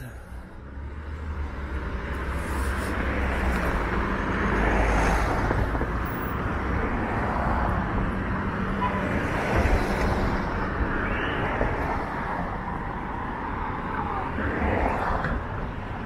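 Steady city road traffic, cars passing, with a gusty low rumble of wind on the microphone.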